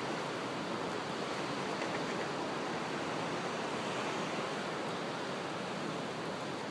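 Ocean surf: a steady, even rushing noise.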